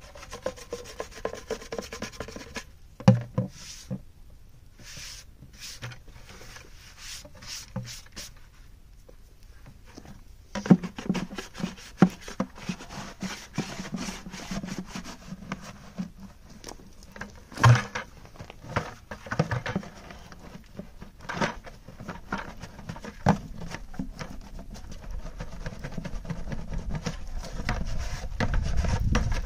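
Irregular scraping and rubbing with scattered knocks as clay is scraped and handled in a plastic bucket.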